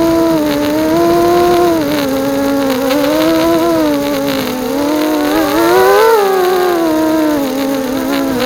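Bee210 FPV quadcopter's electric motors and propellers whining, the pitch dipping about two seconds in, climbing to a peak near six seconds and falling again as the throttle changes.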